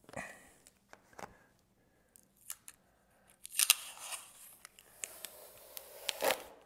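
Short clicks, scrapes and snips of hand work with tools and small hardware, with the sharpest noises about halfway through and again near the end.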